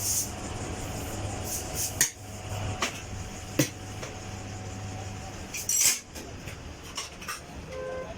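Several sharp metallic clinks and knocks from tyre-fitting work, over a steady low hum. The loudest knocks come about two seconds in and just before six seconds, and the hum fades out soon after five seconds.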